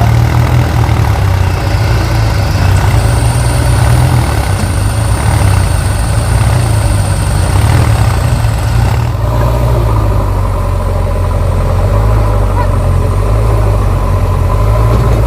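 Heavy diesel machinery engine running steadily, with a thin high whine for several seconds in the middle; the engine note shifts about nine seconds in.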